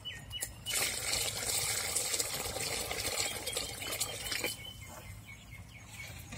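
Water poured from a plastic pot into a metal pot of tamarind fish-curry base, a steady splashing stream that starts about a second in and stops after about four seconds. It is the water added to thin the curry.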